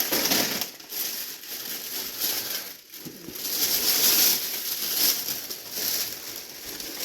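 Plastic shopping bags and food packaging rustling and crinkling as groceries are unpacked, in uneven swells, loudest about four seconds in.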